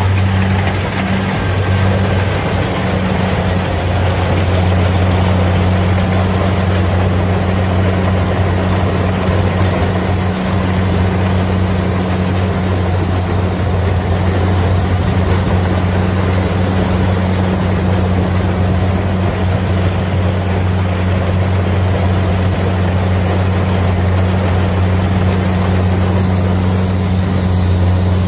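Kubota DC-70 Plus rice combine harvester's diesel engine running steadily as it cuts standing rice, a constant low drone.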